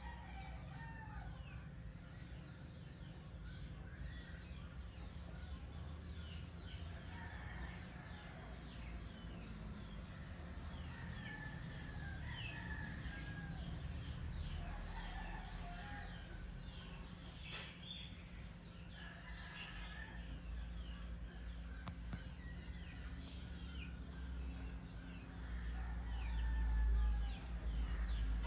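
Roosters crowing now and then, over many small birds chirping and a steady high insect drone. A low rumble rises near the end.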